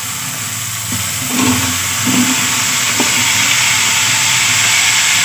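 Cubed zucchini dropped into a hot kadhai of fried onion-and-spice masala, setting off a steady sizzle that swells about a second in.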